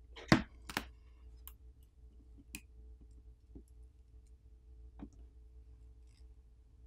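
Sharp clicks and light ticks from pulling the adhesive pull tab under a phone battery and handling the phone's frame. Two loud snaps come about half a second apart near the start, followed by a few faint ticks.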